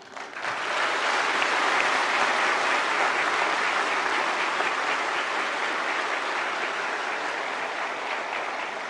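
A large audience applauding steadily. The clapping swells within the first half-second and slowly tapers off toward the end.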